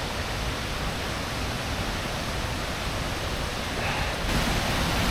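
Waterfall: steady rushing of falling water, growing louder about four seconds in.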